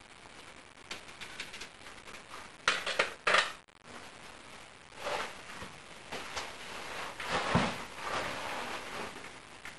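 Scraping and shuffling of a person crawling on hands and knees through a low rock passage: clothing, knees and shoe soles rubbing on the gritty rock floor, with a cluster of louder, sharper scrapes about three seconds in.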